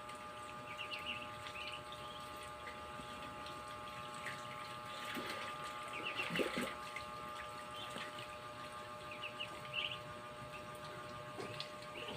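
Ducklings peeping in short clusters of high chirps over water sounds and a steady hum, with a louder splash about six seconds in as a duckling dives.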